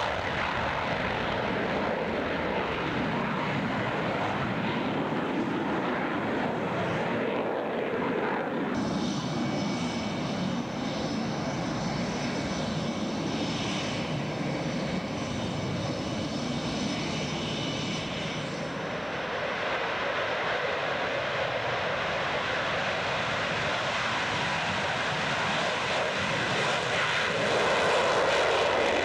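F/A-18 Hornet jet engines running: a steady rushing jet noise. A high whine of several steady tones joins for several seconds in the middle, and the noise grows louder near the end as a two-seat Super Hornet lifts off with its gear still down.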